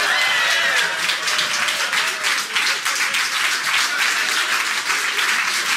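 A small crowd clapping and cheering, with a voice calling out in the first second.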